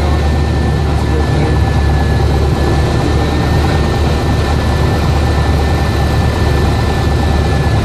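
Single-engine light aircraft's engine and propeller running steadily on final approach to landing, heard as a loud, even drone inside the cabin with a faint steady whine above it.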